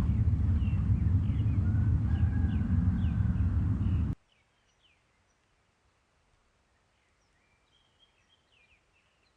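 A loud, steady low rumble with birds chirping over it, which cuts off abruptly about four seconds in; after that, only faint birdsong in near quiet.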